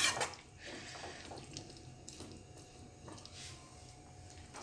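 A steel spoon clinks once against a steel kadai, then a watery chayote and prawn curry simmers quietly in the pan, with a few faint ticks.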